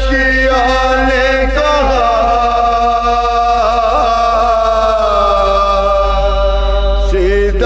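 Several men's voices singing soz-o-salam, a Shia mourning recitation, in long held notes that waver and glide slowly.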